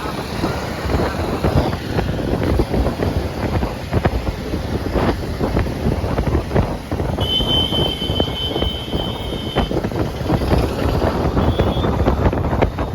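Wind buffeting the microphone over a vehicle's rumble, with a high steady beep lasting a couple of seconds in the middle.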